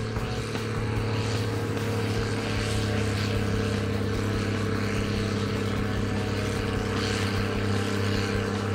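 Diesel tractor engine running at a steady speed: a constant drone whose pitch does not change.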